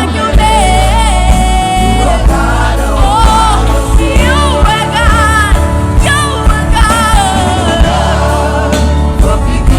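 Gospel worship song: singing voices with a choir, over instrumental backing with a strong bass and a steady beat.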